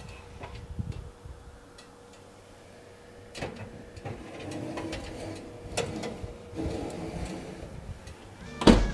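A pan is set onto an oven rack and slid in, giving a few light knocks. The oven door then shuts with one louder thump near the end.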